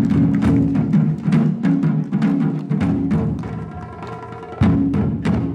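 Japanese taiko ensemble of nagado barrel drums playing a fast run of strokes that thins out, with a long held tone over the quieter drumming. About four and a half seconds in comes one loud unison stroke, the closing hit of the piece.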